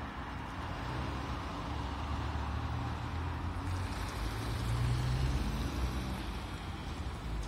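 Street traffic: a BKM-321 trolleybus rolling through a turn and cars passing, with a steady low rumble underneath. It grows louder about halfway through as a car passes close by.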